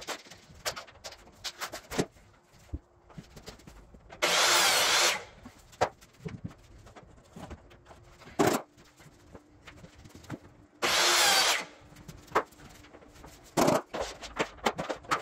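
A power tool runs in two short bursts of about a second each, one a few seconds in and one near the two-thirds mark. Between them come scattered sharp taps and knocks of vinyl planks and hand tools being handled and set down.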